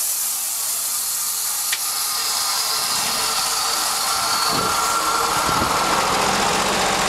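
Sawmill running: a steady high hiss, with a low engine drone building from about three seconds in.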